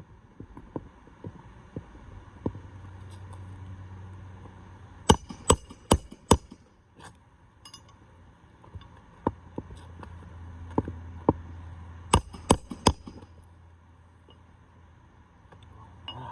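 Hammer driving 1¼-inch roofing nails into a replacement asphalt shingle. Each nail takes lighter taps to start it, then a few hard blows: four quick ones about five seconds in, and three about twelve seconds in.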